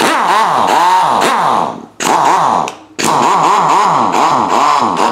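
Ingersoll Rand 231 half-inch air impact wrench running free in three trigger bursts, its pitch swinging up and down. Its air motor is freshly rebuilt with a six-vane rotor and ported.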